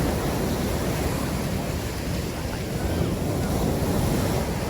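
Ocean surf breaking on the beach, with wind buffeting the microphone: a steady, even noise weighted to the low end.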